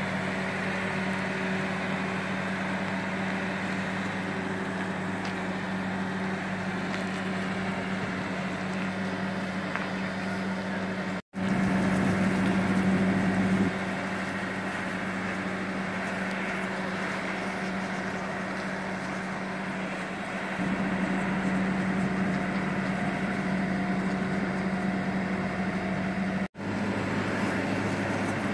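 Engine of a Wise boat travel lift running steadily as it drives along carrying a boat in its slings: a constant drone at one pitch, getting louder about two-thirds of the way through.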